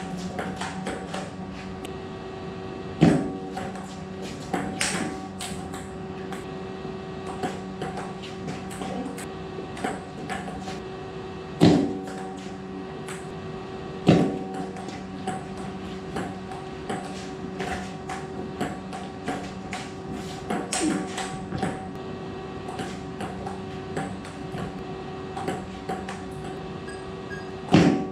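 Table tennis ball clicking back and forth off paddles and table in quick rallies. A few much sharper, louder hits stand out: about three seconds in, twice around the middle, and near the end.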